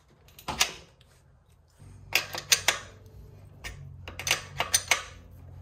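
Sharp metallic clicks and clinks, in three short clusters, as a steel combination wrench works the axle nuts on an e-bike's rear hub-motor wheel.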